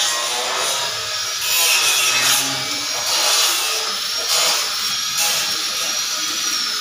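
Stick-welding arc crackling and hissing in several short bursts as a galvanized steel stair railing is welded.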